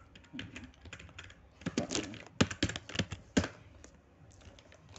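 Typing on a computer keyboard: a run of irregular key clicks, with a short pause near the end.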